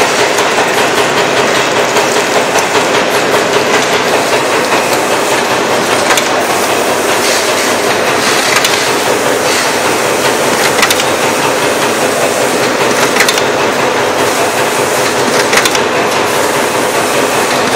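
Automatic wet-wipes production and packaging machine running: a steady, dense mechanical clatter from its conveyors and cycling mechanisms, with a sharp click about every two and a half seconds.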